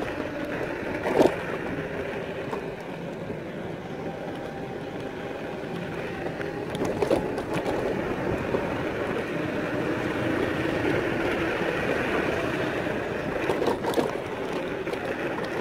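Electric scooter being ridden along a street, heard muffled from a phone in the rider's pocket: a steady rush of riding noise with a few sharp knocks over bumps, about a second in, midway and near the end.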